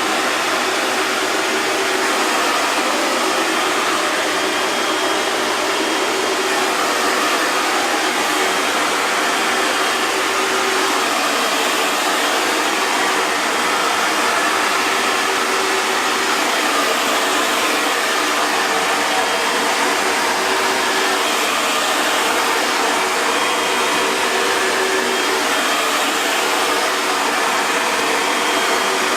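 Hair dryer running steadily: an even rush of blown air over a faint motor hum, with no change in speed or setting.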